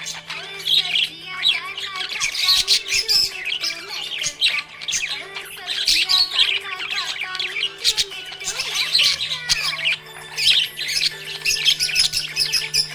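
Several budgies chirping, warbling and squawking in a continuous, rapid chatter over a steady low hum.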